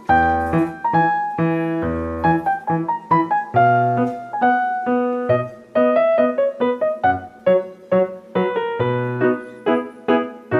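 Background piano music: a lively tune of quick, separate notes over low bass notes.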